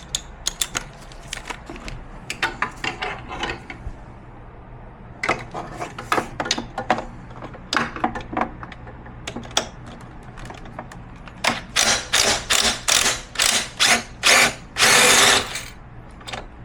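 Ratchet wrench on an extension clicking in short runs as it backs out a seat-plate screw, with a steady series of about three strokes a second late on and one longer, faster run of clicks near the end as the screw comes free.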